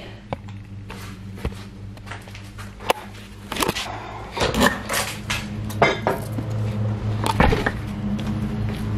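A door being handled and opened and someone walking out through it: a string of sharp knocks and clatters, most of them between about three and six seconds in, with another near the end, over a steady low hum.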